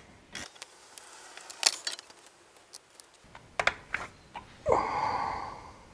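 Small clicks and light knocks of metal brake parts being handled at a car's disc brake caliper. About five seconds in there is a brief rasping noise lasting about a second.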